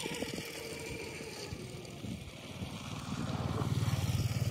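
A small engine running some way off, a low pulsing drone that grows louder from about halfway through.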